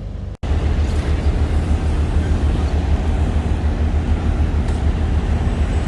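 Semi truck's diesel engine running with a steady low rumble, starting after a brief break about half a second in.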